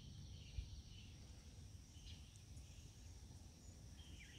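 Near silence: faint outdoor garden ambience, a steady high insect drone with a few soft bird chirps.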